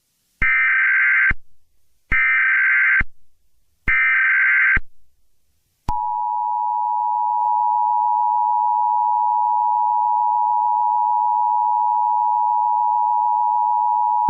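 Emergency Alert System tones: three short, buzzy SAME header data bursts, each just under a second long with gaps between them. About six seconds in, the EAS two-tone attention signal begins and holds steady.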